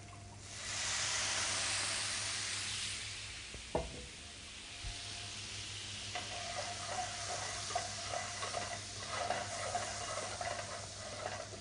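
Floc de Gascogne hitting a hot pan of caramelized melon balls to deglaze it: a sudden loud sizzle about half a second in that dies down over a few seconds. A single knock near the middle, then a utensil stirring and clicking against the pan over a lower, steady sizzle.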